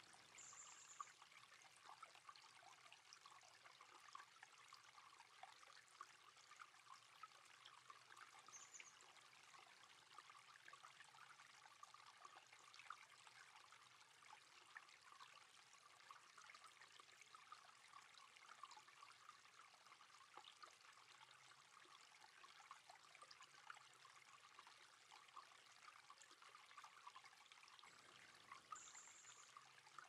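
Small forest creek trickling faintly, a steady burble of many tiny splashes. Three short high-pitched notes come near the start, about nine seconds in, and near the end.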